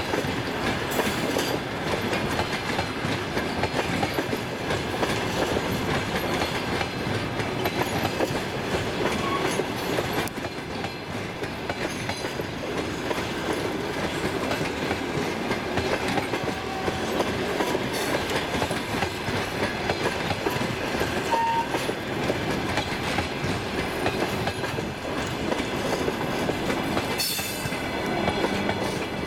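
Russian long-distance passenger coaches rolling steadily past, their wheels running on the rails.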